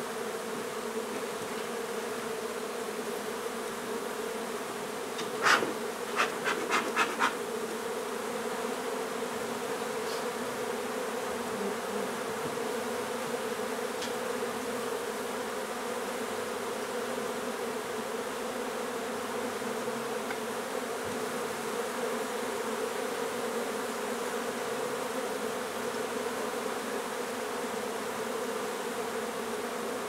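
Honey bees buzzing steadily, the dense hum of a whole colony on open comb. About five seconds in there is a quick run of about five sharp knocks.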